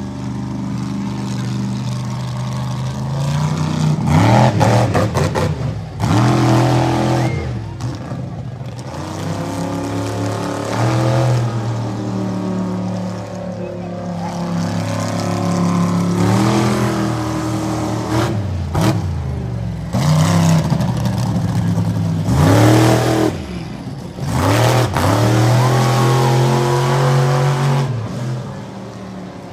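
Monster truck engine revving hard and falling back again and again, its pitch sweeping up and dropping every couple of seconds.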